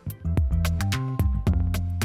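Background music with a steady beat: plucked and keyed instrument notes over a drum pattern.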